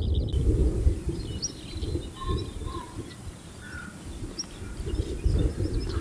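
Small birds chirping here and there over a low, gusting rumble of wind on the microphone.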